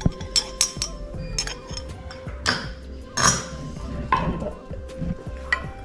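Kitchen utensils clinking and scraping against a bowl as spices are added to minced chicken, a series of sharp clinks with a couple of longer scrapes, over steady background music.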